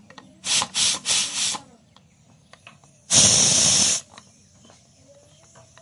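Pressure cooker letting off steam through its whistle valve: three quick hissing puffs about half a second in, then a single louder hiss lasting about a second near the middle.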